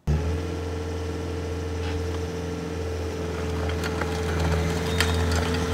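Bobcat S185 skid steer's four-cylinder diesel engine running steadily, getting slightly louder toward the end.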